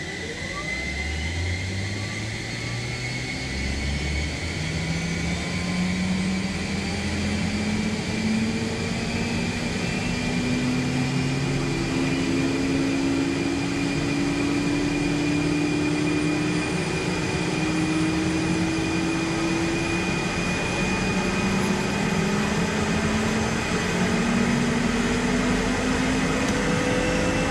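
Bell 429 twin-turbine helicopter spooling up: a steady high whine over lower tones that climb slowly and evenly in pitch as the engines and rotor gather speed.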